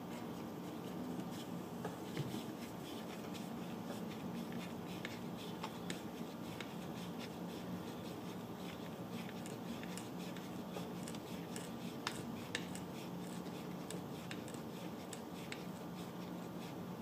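Faint, scattered clicks and scrapes of a small screwdriver working on the metal of an HM-01 model engine, over a steady low hum.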